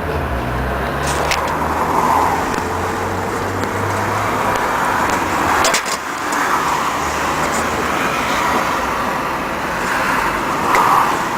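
Motor vehicle engine running with road traffic noise; the low engine hum fades out about halfway through. A few sharp clicks sound over it.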